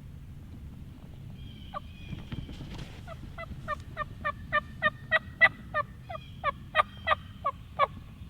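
A long series of turkey yelps, about three a second, each note a short falling call, growing louder and then easing off near the end.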